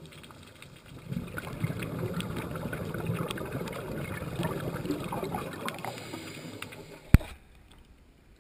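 Scuba exhaust bubbles rushing and crackling past an underwater camera, starting about a second in and lasting about six seconds, over fine underwater clicking. It ends with a single sharp click.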